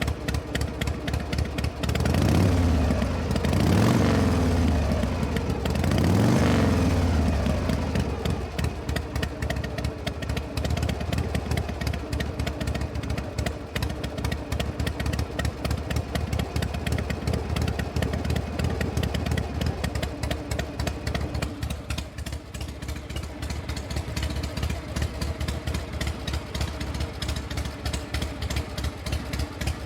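Motor engine revved up and back down three times in the first several seconds, then idling steadily with an even, rapid firing beat.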